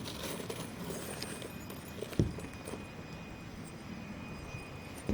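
Steady outdoor background noise with two dull thumps, a loud one about two seconds in and a smaller one near the end.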